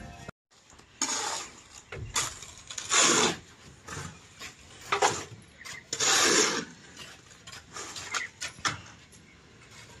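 Building-site work: irregular scrapes and knocks, several seconds apart, as bricks and mortar are handled.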